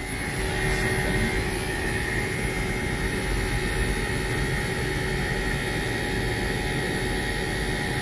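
Friedrich variable-speed hotel air-conditioning unit running: its inverter-driven rotary compressor and condenser fan make a steady whir with a steady high whine. The compressor is running at high speed, drawing over its rated current, which the technician takes for a damaged compressor.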